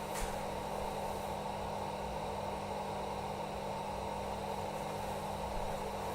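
Sous vide immersion circulator running: a steady whir of its pump and heater stick circulating water, with a low steady hum.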